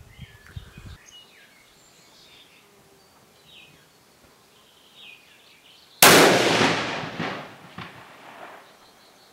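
A single shot from a Sauer S 101 Classic XT bolt-action rifle in .308 Winchester about six seconds in: one sharp, loud crack that rings and echoes around the covered range for about two seconds.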